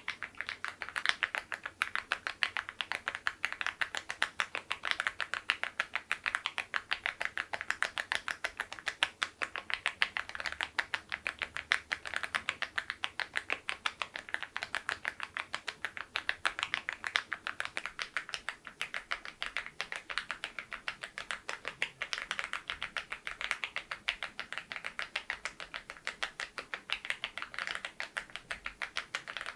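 Mechanical keyboard typed on fast and continuously, a dense run of keystroke clacks. It is fitted with KEYTOK Godzilla keycaps in a very low profile on LEOBOG switches.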